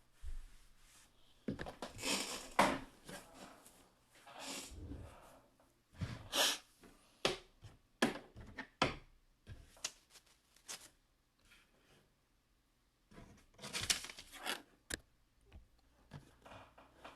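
Wrapping on trading card boxes being torn and crinkled by hand: irregular rips and crackles in several bunches, with pauses between.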